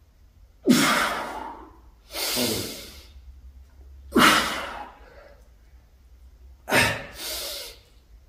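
A man breathing hard and forcefully through a heavy set of incline dumbbell presses: about five loud, sharp-edged breaths, roughly one every one to two seconds, the last two close together.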